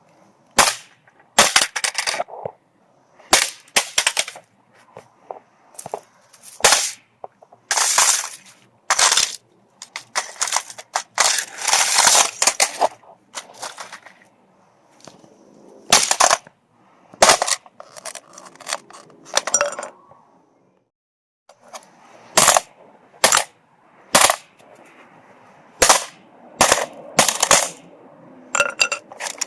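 Hammer blows striking a cheap alarm clock: many sharp, loud knocks at irregular intervals, some in quick runs, with a short pause about two-thirds of the way through.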